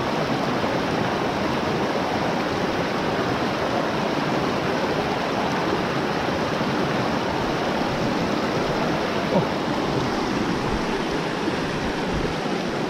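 Shallow mountain stream rushing over rocks and boulders: a steady, even rush of water.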